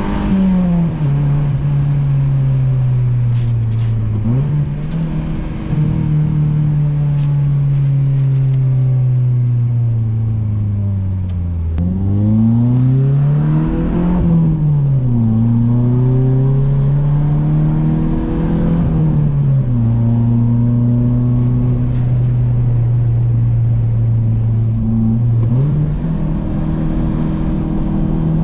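A 1990s Honda's swapped H-series four-cylinder engine driving along. Its pitch climbs as it accelerates, drops sharply at gear changes and sags slowly while coasting, with a long steady stretch of cruising in between.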